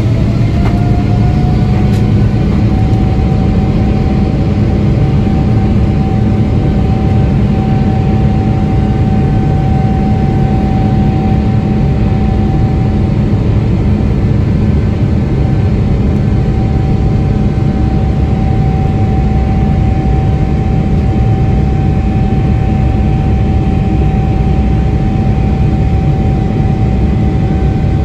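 Boeing 777-300ER cabin noise: a steady, loud roar of the GE90 engines and airflow. An engine whine rises in pitch over the first two seconds, then holds steady.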